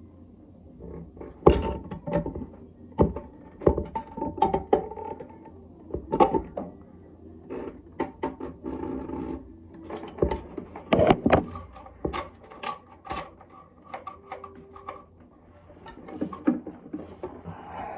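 Irregular knocks, clicks and clunks of hard parts and hand tools being handled while a toilet is fitted.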